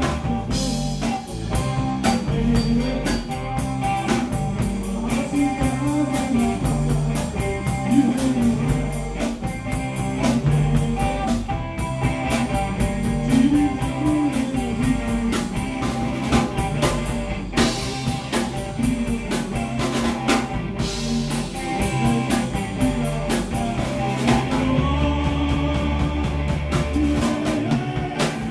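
Live rock band playing: electric guitar, electric bass and drum kit keeping a steady beat, with a man singing.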